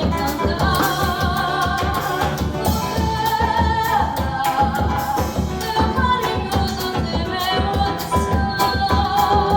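A samba played by a small band: a woman singing the melody over acoustic guitar and hand percussion, with a steady, even beat throughout.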